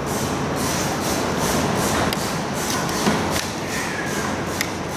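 Car interior trim being pried off its plastic clips and handled: a few scattered clicks and thuds over a steady background noise.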